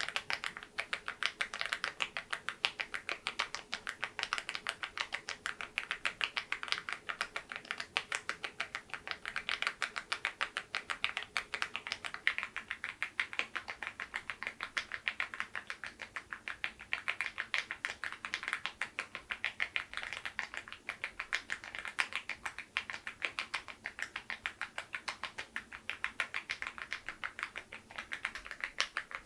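Mechanical keyboard with LEOBOG switches and very-low-profile keycaps being typed on quickly: a continuous run of key clacks, several a second.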